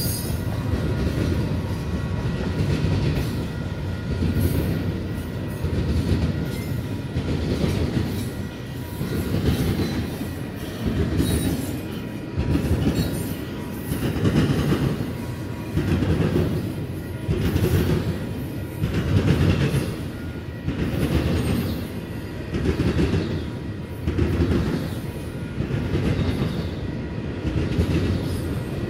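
Double-stack intermodal well cars of a freight train rolling past close by: a steady rumble of wheels on rail with a clickety-clack that swells in an even rhythm about every second and a half.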